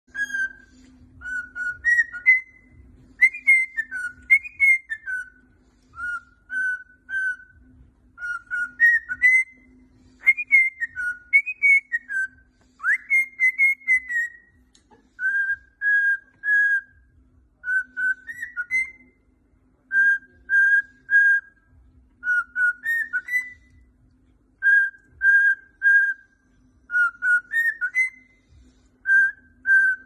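Cockatiel whistling a tune: clear whistled phrases of a few notes each, some gliding upward, repeated again and again with short pauses between them.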